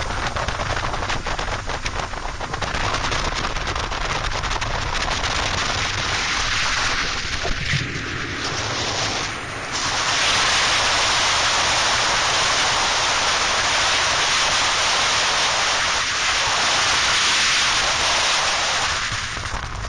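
Wind buffeting the microphone of a camera mounted on a fishing boat running at high speed, mixed with rushing water and spray, in a rough crackle. About halfway through it changes to a steadier, louder hiss.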